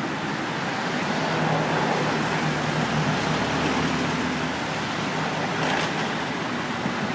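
Steady motor vehicle running noise, an even rush of engine and road sound with a low hum.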